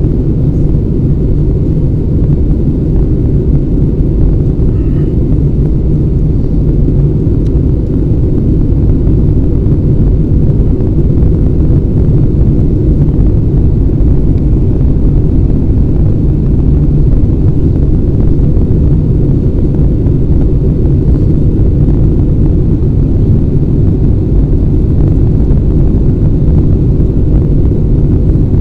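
Steady, loud low rumble of an Airbus A320's engines and rushing airflow, heard from inside the passenger cabin in flight.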